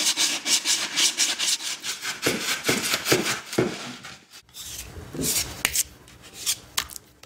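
Rapid, regular rubbing strokes on a hard surface, about five a second, thinning out to a few spaced strokes after about four seconds.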